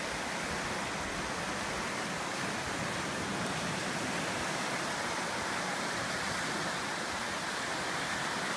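Small ocean surf breaking close by and washing up a sandy shore, heard as a steady hiss of water.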